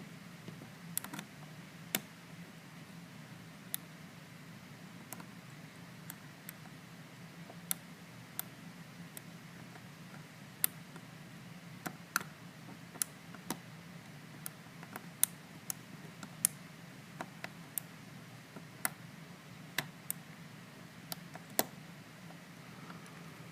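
Lock pick and tension wrench working inside the pin-tumbler core of a plastic-bodied Master Lock 410 lockout padlock: scattered sharp little clicks and ticks at irregular intervals as the pins are lifted and set, over a faint steady hum.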